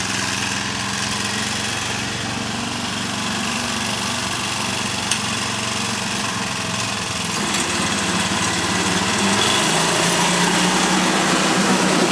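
Small gasoline engine of a powered reel lawn mower running steadily; about eight seconds in its note shifts higher and it gets louder.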